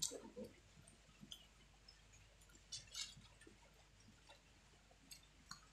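Quiet eating sounds of people having fried chicken and rice: faint chewing with a few small scattered clicks and smacks.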